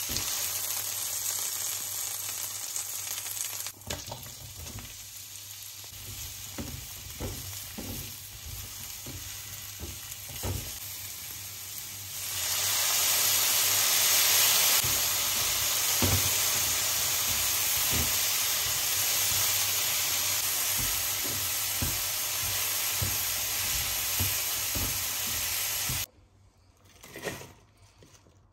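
Food frying in a hot non-stick pan: chicken and then sliced mushrooms sizzling, with short knocks of tongs and stirring. About twelve seconds in, the sizzle jumps to a loud, bright hiss as vinegar hits the hot pan, and it holds steady until it cuts off near the end, leaving only faint rustles of lettuce tipped into a wooden bowl.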